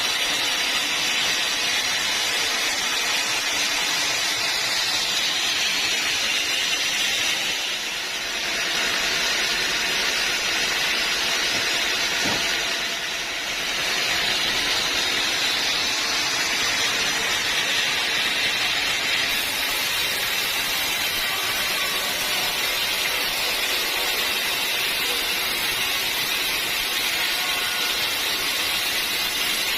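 Sawmill machinery running steadily, with a high-pitched hiss from the saw, briefly dipping in level twice.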